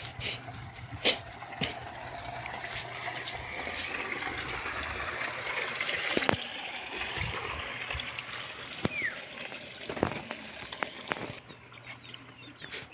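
Water running and gushing in a small irrigation ditch, the rush building up and then dropping off suddenly about six seconds in, with scattered clicks of footsteps on the muddy bank.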